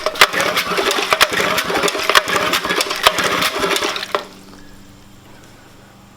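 Old Sea-Bee 3 HP outboard motor being cranked by hand, clattering with rapid irregular clicks without catching, and stopping abruptly about four seconds in. The engine will not fire because its clogged carburetor jet lets no gas through.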